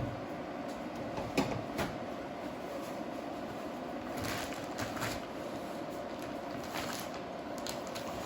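A steady background hum with a few light clicks and knocks of things being handled.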